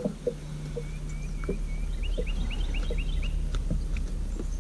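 A steady low hum, with scattered light clicks and knocks as a freshly caught bass is handled in the boat. A bird calls a quick run of about seven short rising notes a couple of seconds in.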